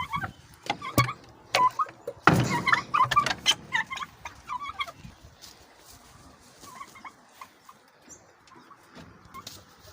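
Young turkey poults peeping, many short chirps at once, with a few sharp knocks in the first couple of seconds. The peeping thins out after about five seconds.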